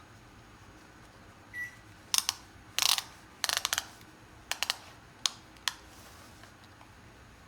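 Leather ratchet belt's buckle clicking as the strap is pushed through and tightened: sharp clicks in irregular groups, starting about two seconds in and stopping a little before six seconds.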